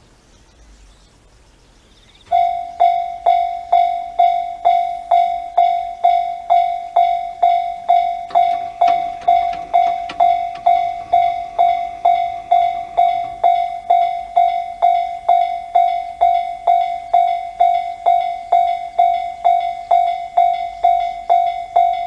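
Japanese level-crossing warning bell, the electronic Tobu-type 'sound C' alarm, starting about two seconds in and ringing at a steady pace of about one and a half clanging dings a second. It signals that a train is approaching and the crossing is closing.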